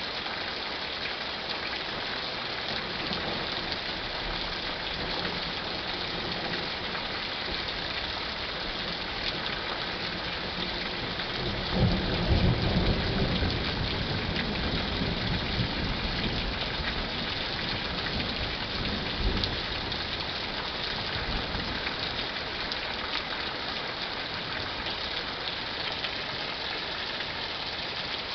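Steady rain falling, with a rumble of thunder about twelve seconds in that rolls on for several seconds and fades away.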